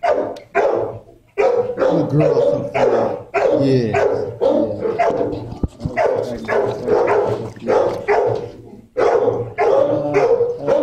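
Dogs barking over and over, the barks following one another almost without a break, with a short lull about a second in.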